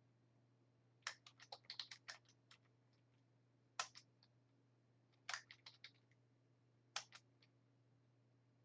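Computer keyboard being typed on in short bursts: a quick run of keystrokes about a second in, then a few scattered clusters of clicks, faint over a low steady hum.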